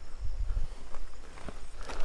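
A few soft footsteps over a low rumble on the phone's microphone.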